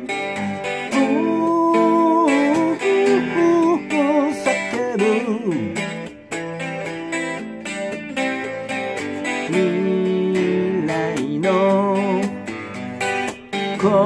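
Semi-hollow electric guitar playing chords, with a melody of long held notes that waver with vibrato and slide down in pitch about five seconds in.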